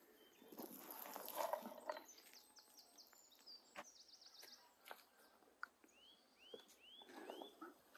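Small birds calling outdoors: a rapid high trill, then four short arching chirps about half a second apart. A brief rustling noise is louder about a second in.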